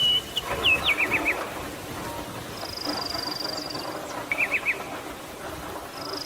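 Songbirds calling: two quick runs of short falling chirps, and a high, rapid trill at about three seconds and again near the end, over a steady background hiss.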